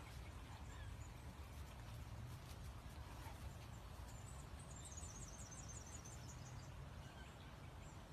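Faint outdoor background noise with a steady low rumble, and a short run of high, rapid bird chirps about four to six seconds in.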